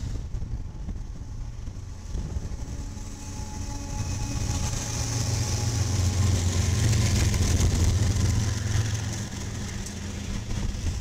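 BNSF diesel freight locomotives passing close by under power: a steady low engine drone that grows louder as the units draw level, peaking past the middle and easing near the end, with wheel and rail hiss from the intermodal train behind.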